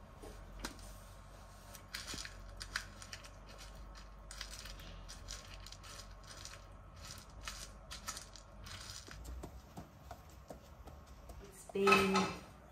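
A hand rummaging through a small plastic bowl of mixed pigeon seed, the dry grains rattling and rustling in quick irregular clicks. About a second before the end, a brief loud vocal sound.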